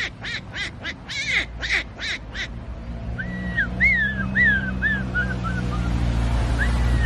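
A man imitating a duck: a quick run of about eight short quacks, followed from about three seconds in by a string of high, falling calls in the same mimicked voice.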